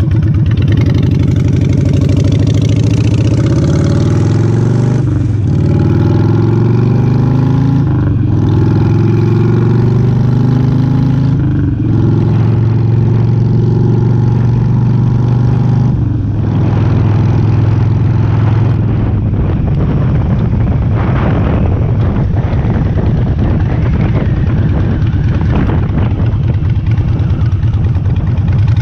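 Harley-Davidson V-twin with Vance & Hines short pipes, accelerating up through the gears. Its pitch climbs and then drops at upshifts about 5, 8 and 12 seconds in, and it then runs on at speed with wind buffeting on the helmet-mounted microphone.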